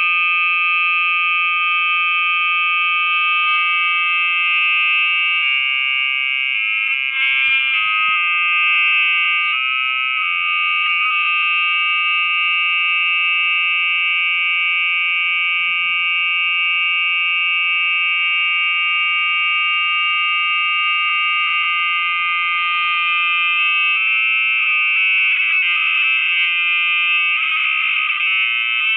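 Loud, shrill electronic drone made of many steady high tones stacked together, with the blend of tones shifting at a few points, like a feedback howl. It comes from a phone video's sound that has been re-recorded again and again through nested screen recordings.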